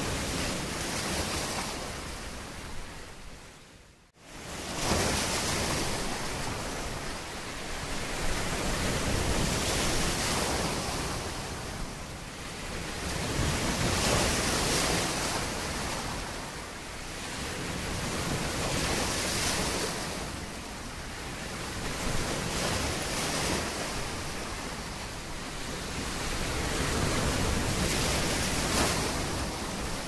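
Sea waves washing, the surf swelling and ebbing every five or six seconds. The sound dips almost to silence about four seconds in, then comes back.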